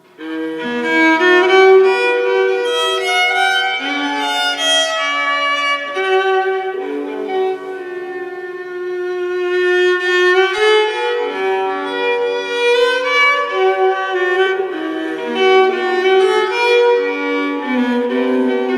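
Background music: a solo violin playing a slow melody of held notes, with another bowed string or accompanying line below it.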